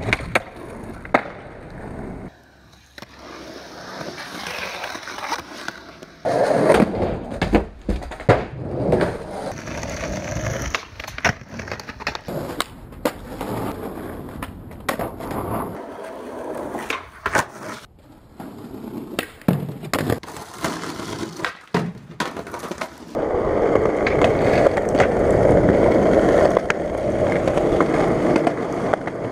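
Skateboard wheels rolling over pavement and decking, broken by sharp clacks of the board popping and landing, across several abruptly cut clips. A long, steady stretch of rolling near the end is the loudest part.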